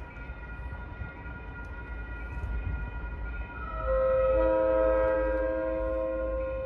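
Air horn of an MBTA F40PH-2C diesel locomotive on the approaching power wash train: a multi-tone chord, faint at first, then a long loud blast starting about four seconds in, over a steady low rumble.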